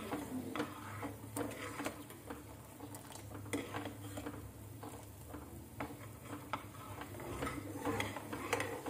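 Steel ladle stirring boiling sugar syrup in a non-stick pan, clicking and scraping against the pan at irregular moments, over a faint steady low hum.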